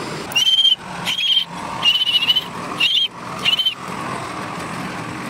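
Heavy truck engine running low and steady, with five short, loud squealing bursts at uneven intervals, each a brief wavering high tone over a burst of noise.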